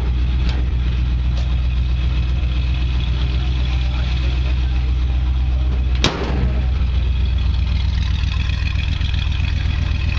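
The 1970 Chevrolet C10's 350 cubic-inch crate V8 idling steadily, its sound mostly low and deep. A single sharp click comes about six seconds in.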